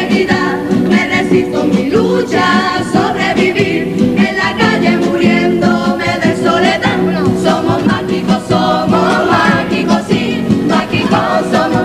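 A mixed carnival comparsa chorus, women's voices prominent, singing in harmony over a steady instrumental accompaniment with a bass drum.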